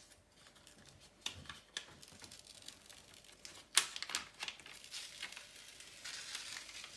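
Clear plastic cover film being peeled off the adhesive surface of a diamond painting canvas, crinkling and crackling irregularly, with one sharp snap a little past the middle and a denser crackle near the end as the sheet comes away.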